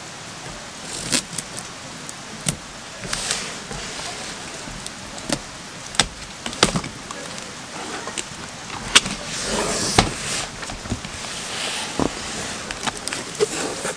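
Plastic stretch wrap being cut and peeled off a cardboard box, crinkling, with sharp clicks and knocks as the cardboard box is handled and turned.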